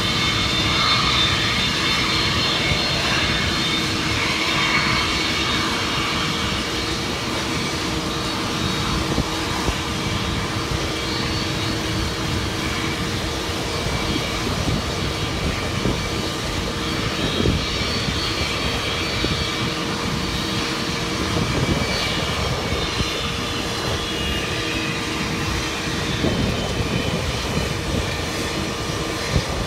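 Jet airliner engines running, a steady whine with level tones over a constant rumble.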